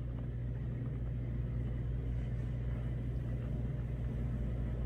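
Steady low hum of a machine or appliance running, even throughout with no change.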